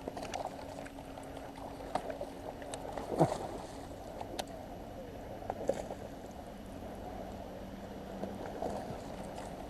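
Sounds aboard a small fishing boat on the water: a steady wash of water and wind noise with a faint steady hum. A few sharp knocks and clicks come through, the loudest about three seconds in.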